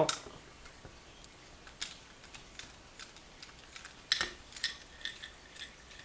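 Faint, scattered metallic clicks and taps of a Phillips screwdriver working the bottom screw of an American Lock 1100 series padlock to free its core, with a sharper clink about four seconds in.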